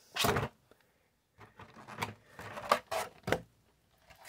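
Clear plastic insert tray of a trading-card collection box being lifted out and handled: a loud scrape about a quarter second in, then a run of shorter rustles and clicks through the middle.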